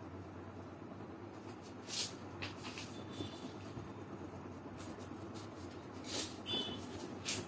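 Felt-tip marker rubbing on paper in short, scratchy colouring strokes, the loudest about two seconds in and near the end, over a low, steady background hum.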